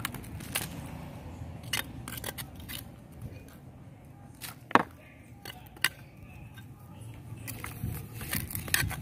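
Scattered light clicks and knocks over a low rumble, with two sharper knocks around the middle.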